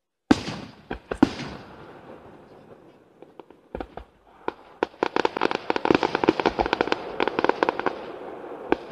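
Aerial fireworks bursting: two loud bangs in the first second and a half, then a dense run of rapid crackles from about five to eight seconds in, and another bang near the end.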